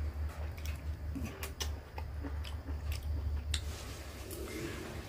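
Close mouth sounds of a man biting and sucking the flesh off a slice of ripe mango held in his fingers: short wet clicks and smacks, over a steady low hum.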